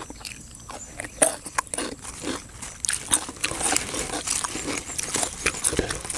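Close-miked chewing of spicy pounded chicken feet: irregular wet mouth clicks, smacks and crunches, coming thicker in the second half.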